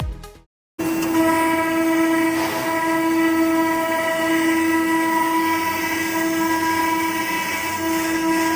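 CNC router machine running, with a steady high-pitched spindle whine over a hiss of machining noise. It starts suddenly just under a second in, after a short silence.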